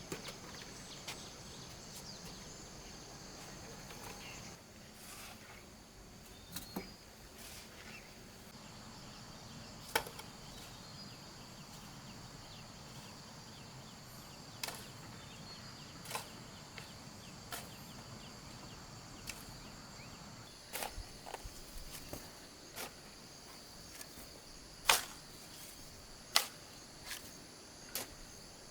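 Outdoor ambience with a steady high-pitched hum and scattered sharp clicks and knocks, the loudest about 25 seconds in.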